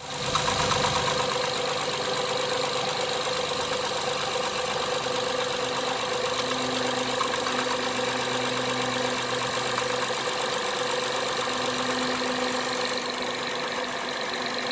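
2012 Acura TL's V6 engine idling steadily with a fast, light ticking noise.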